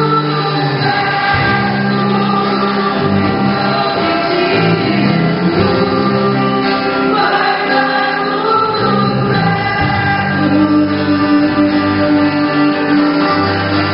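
Christian worship music: voices singing over instrumental accompaniment, with sustained bass notes.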